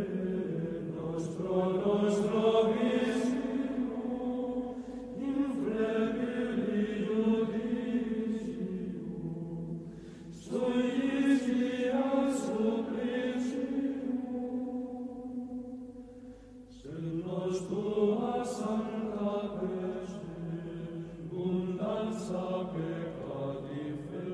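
Voices singing chant in slow, sustained phrases of about five seconds each, with a brief dip between phrases.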